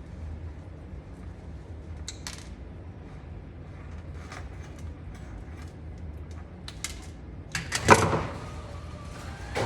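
Light clicks and rattles of small parts and tools being handled, then about 8 s in a loud clunk as an overhead garage door starts moving, followed by the steady run of its opener.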